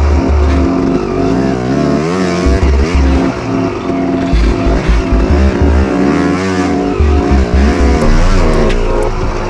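A KTM 250 XC-W's two-stroke single-cylinder engine under constant throttle work at walking pace, its pitch rising and falling again and again as the throttle is opened and closed, with steady stretches in between.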